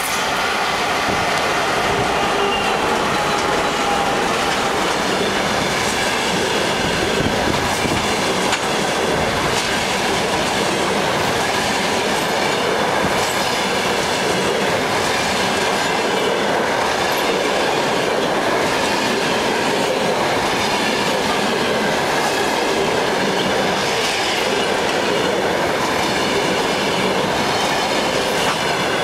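Passenger train hauled by a ChS7 electric locomotive passing close by at speed: a steady rolling rush, the coach wheels clattering over the rail joints, with a faint high wheel squeal.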